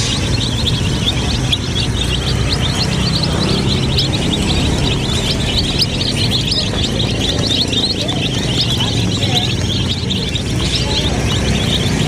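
A flock of domestic chicks peeping continuously, many short high cheeps overlapping, over a steady low rumble.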